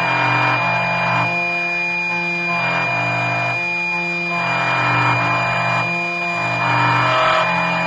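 CNC key cutting machine cutting a Kwikset key blank to its bittings: a steady high spindle whine, with lower motor tones that step up and down in pitch every second or so as the cutter moves from cut to cut.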